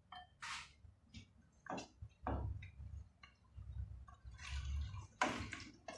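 Spatula stirring a coconut-milk stew of shrimp and squash in a pot, making wet sloshing and soft scraping sounds. First comes a string of short strokes, then longer, louder stirring strokes near the end.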